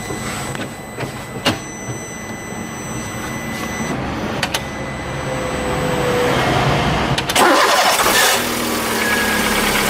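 VW Polo 4 engine running with a newly fitted belt, revved briefly about seven seconds in, then settling back to idle. The loud noise it had before is gone and only the engine's own sound is left.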